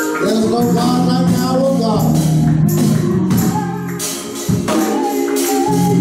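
Gospel music at a church service: singing with a tambourine shaken in rhythm.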